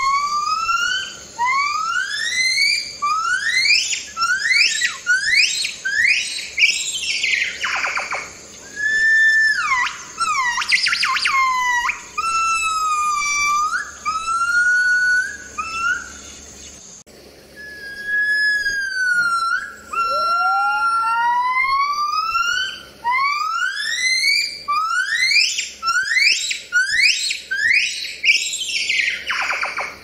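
Gibbon song: a series of rising whooping calls that start low, then quicken and climb steeply in pitch to a climax. The phrase plays twice, with a short sliding wail between.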